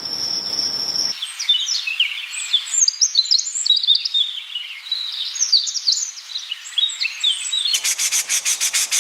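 A steady, high cricket-like insect trill cuts off about a second in and gives way to rapid, overlapping high chirps of small birds, many short falling notes. Near the end a rhythmic scratching of several strokes a second takes over.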